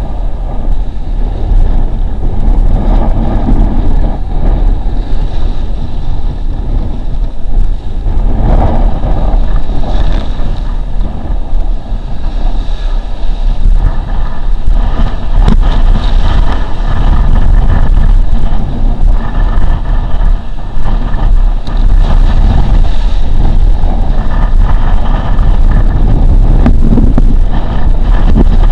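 Strong wind buffeting a camera microphone mounted on a windsurfing rig, a loud, steady rumble that rises and falls with the gusts, over water rushing and splashing beneath a windsurf board sailing across choppy sea.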